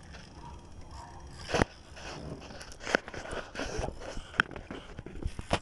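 Handling noise from working a jigging rod and reel under load: scattered clicks and scrapes, with a few sharper knocks about a second and a half, three seconds and four and a half seconds in.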